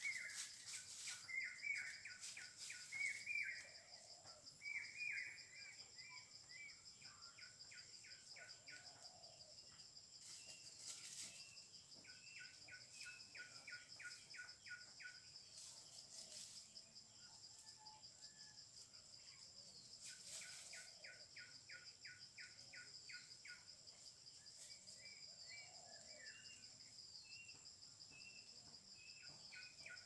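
Faint outdoor ambience of birds and insects: a steady high-pitched insect whine throughout, scattered bird chirps in the first few seconds, then several runs of quick, evenly repeated chirps.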